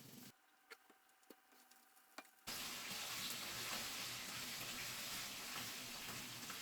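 A few light clicks, then about two and a half seconds in a steady hiss of food sizzling in a hot pan starts abruptly.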